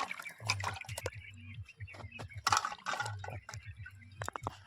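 Close, wet eating sounds: chewing and lip-smacking on mutton curry, a string of small clicks and moist smacks with a brief louder burst about halfway through.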